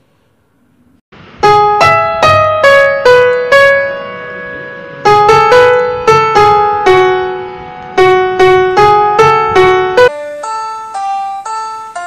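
Background music: a piano melody of struck, decaying notes that starts about a second in after a moment of near silence. About ten seconds in it gives way to a lighter, brighter keyboard line.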